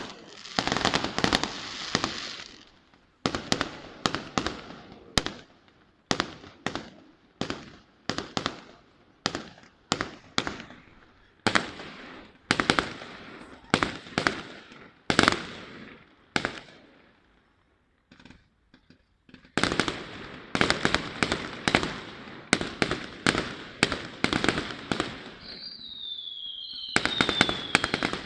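Fireworks display: a string of sharp shell bursts, about one or two a second, each trailing off, then a short lull and a rapid barrage of bangs. Near the end, falling whistles sound over the bangs.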